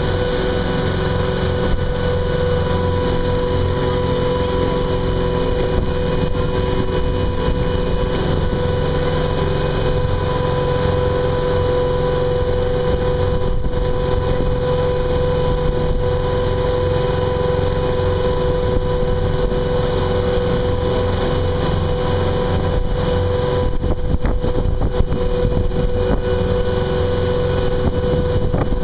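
Boat engine running steadily with the boat under way: an even drone with a constant hum in it.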